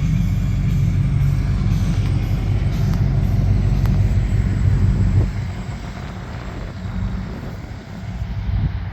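Ford pickup's flathead engine running with a steady low rumble, turning quieter about five seconds in.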